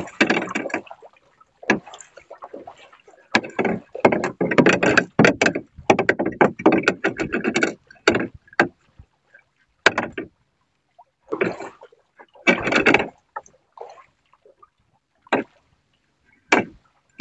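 Water slapping and knocking against the hull of a small wooden outrigger boat, in irregular splashy bursts of about a second or two with sharp knocks of wood among them.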